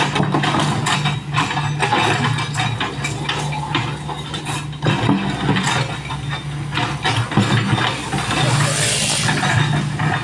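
Excavator's diesel engine running steadily, with repeated knocks and clanks, and a brief hiss near the end.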